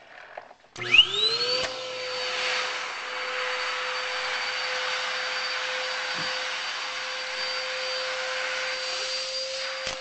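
Vroom Solo built-in vacuum switching on about a second in when its handle is lifted: the motor's whine climbs quickly to speed, then it runs steadily with a high whine over the hiss of suction air.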